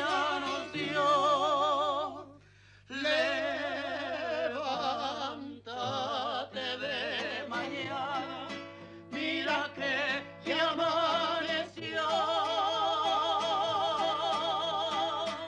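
A song: a singer holding long notes with wide vibrato, phrase after phrase with short breaths between, over a quiet instrumental backing.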